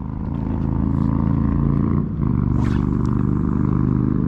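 A motor engine running steadily, a low even hum that grows louder over the first second and dips briefly about two seconds in.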